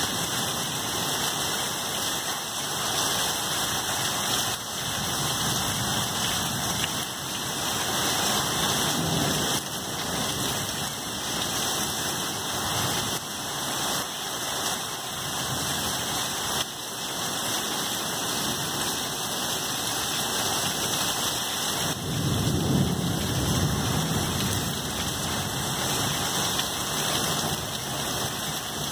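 Heavy rain pouring steadily in a thunderstorm. A low rumble of thunder swells about three-quarters of the way through and lasts a few seconds.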